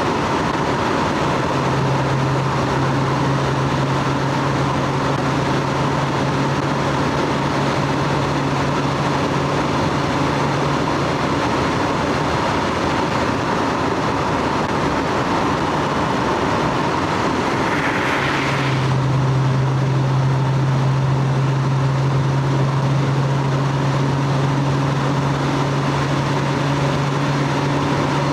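Stock Lexus GS300's inline-six engine and exhaust running at a steady speed over a steady rush of noise, with a low, even drone. The drone fades out for several seconds midway, a brief hiss comes up just before it returns, and it then holds until the end.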